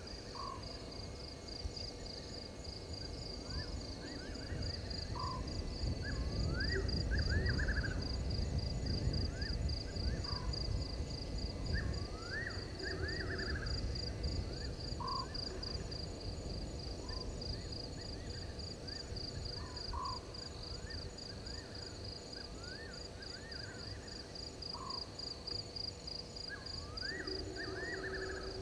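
Night bush chorus at a waterhole: a steady, fast-pulsing high insect trill, with short rising-and-falling animal calls repeating every second or two. A low rumble swells for several seconds in the middle.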